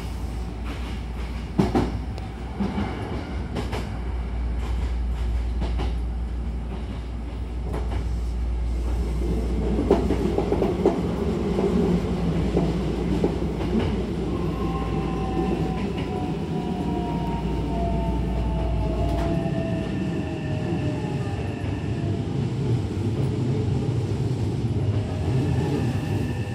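Hankyu train heard from inside the carriage, running with its doors shut. Wheels click over rail joints in the first few seconds, and a low hum stops about two-thirds of the way through. From about halfway a motor whine falls in pitch as the train slows.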